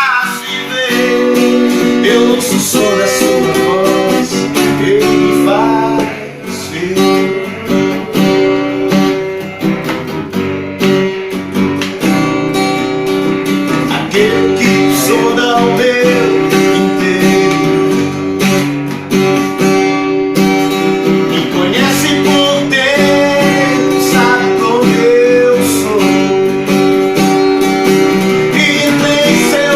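Acoustic guitar being strummed and played live, with a voice singing along at times.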